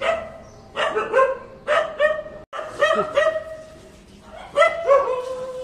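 Dogs barking repeatedly, a rapid series of short barks, raised at a costumed visitor at the house.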